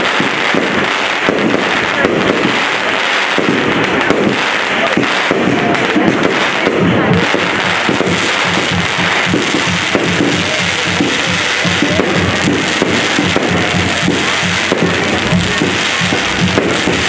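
Castillo fireworks going off in a dense, continuous crackle of bursts and firecracker pops, with music playing underneath.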